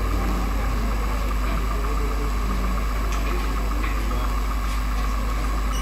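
Steady low mechanical hum with a fainter steady higher whine, and a couple of faint ticks a little past the middle.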